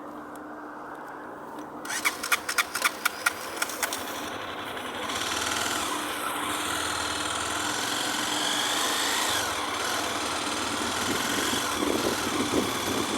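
A motor engine running with a whining note that rises and falls, after a quick run of sharp clicks about two seconds in.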